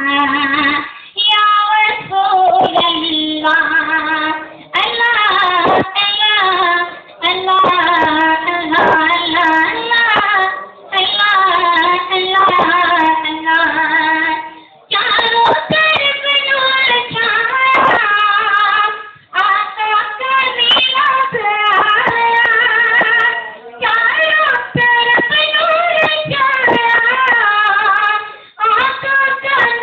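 A boy singing a naat, an unaccompanied Urdu devotional song in praise of the Prophet. He sings solo in long, wavering held phrases, with short breaks for breath between them.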